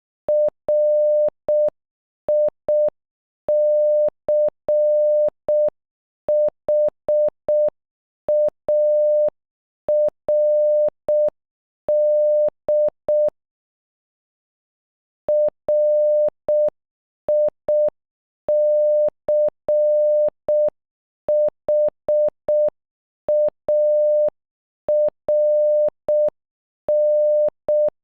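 Morse code audio: a single steady, mid-pitched beep keyed into short dots and longer dashes, spelling RICHARD (.-. .. -.-. .... .- .-. -..) at half speed. There is a pause of about two seconds halfway through.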